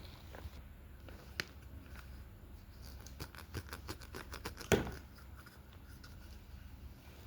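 Small plastic toy pieces clicking and tapping as they are handled: a single click about a second and a half in, then a quick run of light clicks ending in the loudest click near five seconds in.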